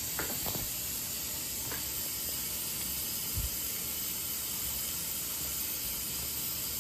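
Faint soft scrapes and knocks of a wooden spoon stirring thick creamy chicken and rice in a foil pan, over a steady hiss. A low thump comes about three and a half seconds in.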